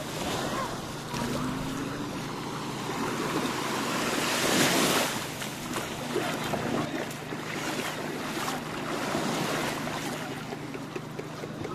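Beach ambience: small waves washing onto sand, with wind, swelling to a louder wash about four to five seconds in.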